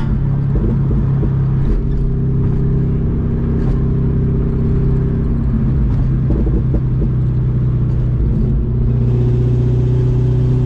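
C6 Corvette's straight-piped V8 exhaust with long-tube headers, running at a steady cruise as a steady low drone. There is a brief rough patch about six seconds in, and a hiss joins in near the end.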